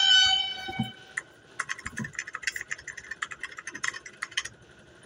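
A held musical tone fades out within the first second. About a second and a half in, rapid, irregular clicking and rattling begins and runs for about three seconds before stopping.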